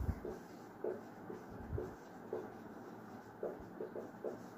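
Marker pen writing on a whiteboard in short strokes, with a quick run of strokes near the end.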